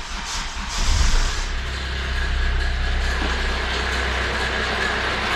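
Kia Rio 1.5 CRDi diesel engine catching just after start-up, rising briefly about a second in, then idling steadily. It carries the strange noise that the mechanic puts down to a badly worn timing chain vibrating.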